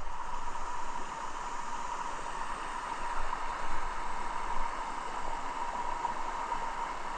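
Flowing river water, a steady rushing hiss.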